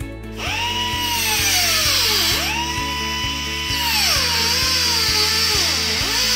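Pneumatic air saw cutting sheet-steel floor pan: a high whine that starts about half a second in, sags in pitch as the blade loads in the cut and climbs back when it frees, with dips at about two seconds and again around five to six seconds.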